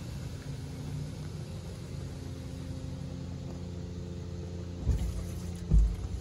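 Istobal in-bay automatic car wash running: a steady low hum with two heavy low thumps near the end.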